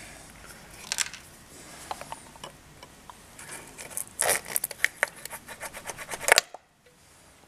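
Hands and tools rubbing, scraping and clicking as they work at a coil pack stuck fast in its plug well, busiest a few seconds in, then cutting off suddenly about a second before the end.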